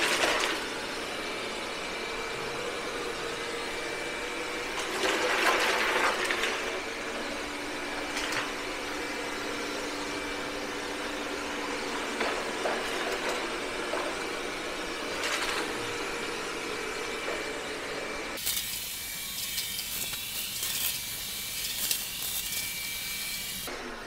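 Roborock S6 MaxV robot vacuum running across a tile floor: a steady whir of its suction fan and brushes with a faint whine, sucking up Cheerios and salt. It grows louder for a second or so about five seconds in, with a few scattered clicks. Its sound turns thinner and hissier about three-quarters of the way through.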